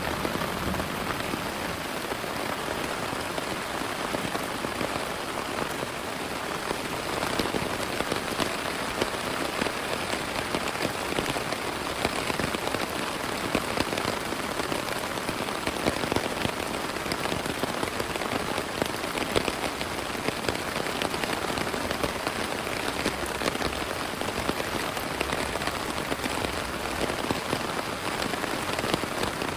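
Heavy rain falling steadily, a dense hiss with many close individual drop hits.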